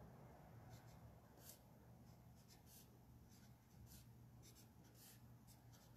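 Faint scratching of handwriting: a series of short, irregular writing strokes.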